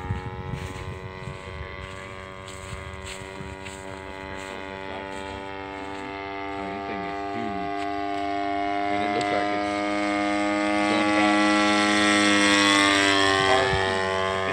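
A giant-scale radio-controlled airplane's engine and propeller droning steadily in flight, growing louder as the plane comes closer in the second half.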